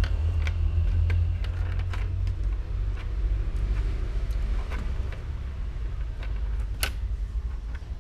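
Plastic ballpoint pen clicking and tapping on a wooden desktop as a kitten paws and bats it about, in scattered, irregular knocks, the sharpest one near the end. A steady low rumble lies underneath.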